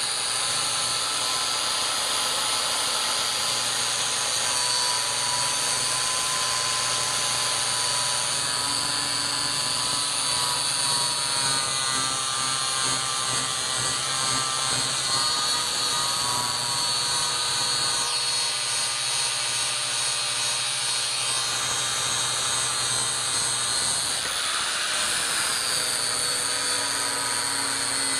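A power tool running steadily with a high whine, its pitch shifting twice in the second half.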